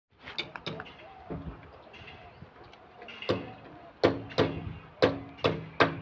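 Repeated hammer blows with a short metallic ring after each, a few every second starting about three seconds in, after some faint clicks at the start.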